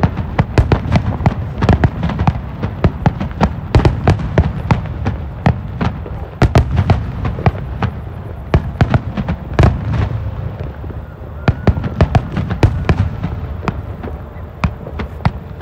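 Aerial firework shells bursting in quick succession: a dense run of sharp bangs and crackles over low, rumbling booms.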